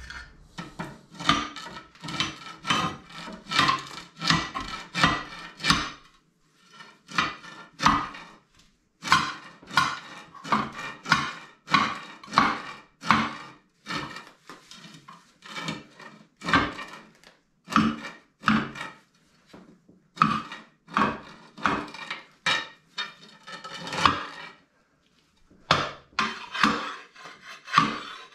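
Irregular metal-on-metal clanks and scrapes, one or two a second with a few short pauses, from steel plates and tools being worked under a heavy milling machine as it is slid across the floor.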